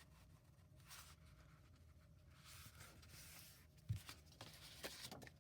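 Faint rustling and rubbing of paper cardstock being handled and pressed into place, with a soft tap about four seconds in.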